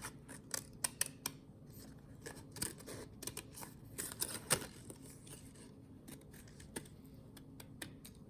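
Scissors making short, irregular snips while cutting out a paper shape printed on thick paper.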